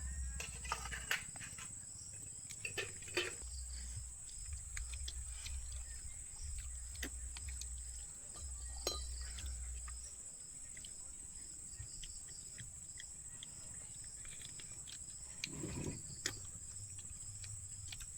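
Crickets chirring steadily and high-pitched, with scattered faint clicks and knocks and a low rumble that comes and goes.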